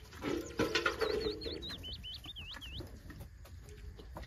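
A small bird chirping a quick run of about ten high notes, each dipping and rising in pitch, just after a short low call near the start.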